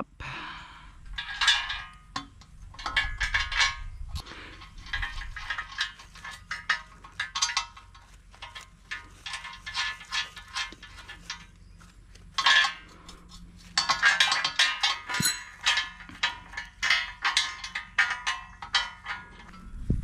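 Steel parts of a Woodland Mills sawmill bed extension clinking and knocking as the rails are handled and bolted together: many short, irregular metallic clinks and taps.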